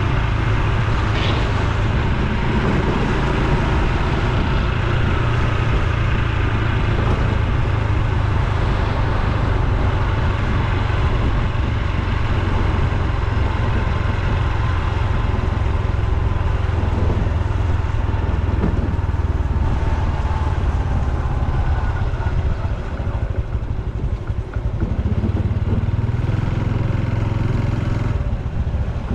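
Honda Super Cub C125's single-cylinder engine running steadily while riding on the road, with rushing wind noise. The engine note eases briefly about three-quarters of the way through, then picks up again.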